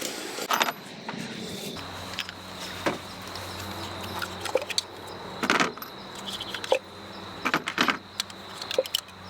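Irregular clicks and knocks of hand work on the engine top: ignition coil packs and their bolts being pulled and handled, with a low steady hum from about two seconds in.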